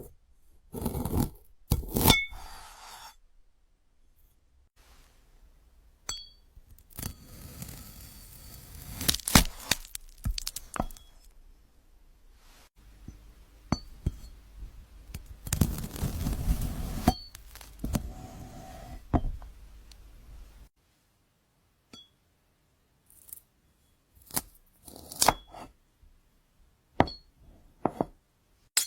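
Knife cutting through frozen fruit: sharp icy cracks and longer crunching, scraping strokes as the blade goes through, with pauses between cuts and a short quiet stretch past the middle.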